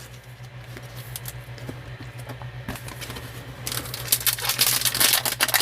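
Soft clicks and handling of trading cards, then from about three and a half seconds in a louder crinkling of plastic card packaging, over a steady low hum.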